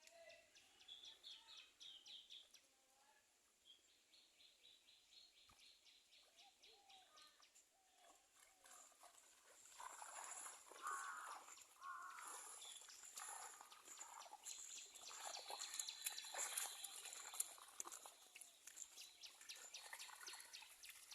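Faint outdoor ambience of birds chirping, with quick repeated trills early on and busier calls from about halfway through.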